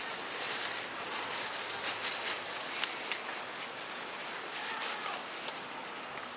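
Black plastic trash bag crinkling and rustling as hands pull it open and peel it back, with irregular sharp crackles.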